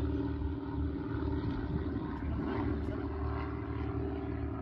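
A steady engine drone holding one pitch, over a low rumble.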